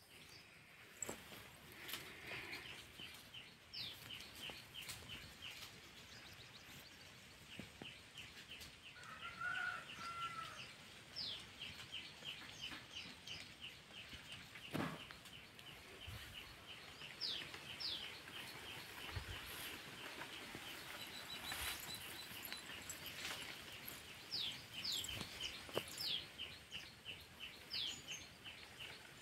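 Birds calling outdoors: rapid runs of high chirps with short falling whistled notes over them, faint, with a few scattered clicks.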